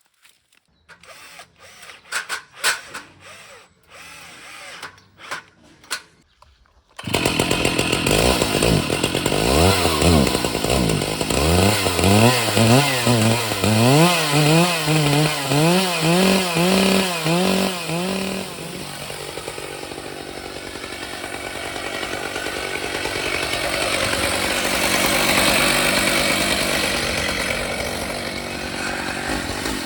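Stihl MS 881 two-stroke chainsaw starting about seven seconds in, after a few knocks and clicks. It is revved up and down repeatedly, then runs steadily under load, cutting through the log, its sound swelling and easing again near the end.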